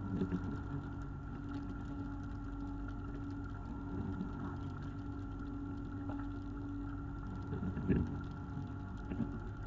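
Fishing boat's engine running with a steady drone, with a few knocks and thuds on board, the loudest about eight seconds in.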